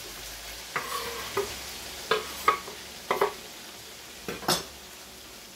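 Chicken sizzling steadily in yogurt and oil in a karahi, with about eight sharp knocks and scrapes of the spatula and the wooden cutting board against the pan as chopped tomatoes are tipped in; the loudest pair comes a little over four seconds in.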